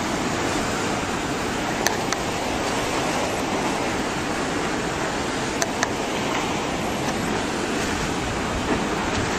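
Tsunami floodwater surging and churning through a harbour, a steady heavy rush of turbulent water. A few short sharp knocks stand out about two seconds in and again a little past halfway.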